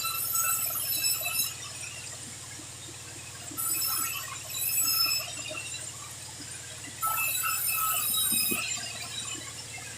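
Sawmill saw cutting sengon (albizia) timber into beams: a steady motor hum, with four bursts of high-pitched cutting whine as the blade goes through the wood, the longest near the end.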